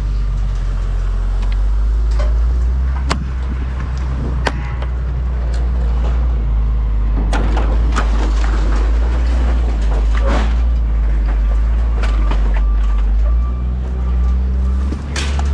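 A vehicle driving, with a steady low rumble of engine and road, and scattered knocks and rattles on top.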